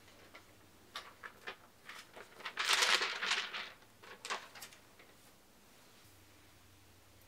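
Thin blue multilayer plastic film (INZEA FBH) crinkling as it is handled and held up. There are a few light rustles and taps, and a louder rustle of the sheet between about two and a half and three and a half seconds in.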